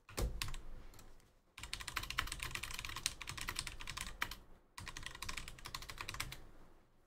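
Typing on a computer keyboard: quick runs of key clicks in three stretches, with short pauses between.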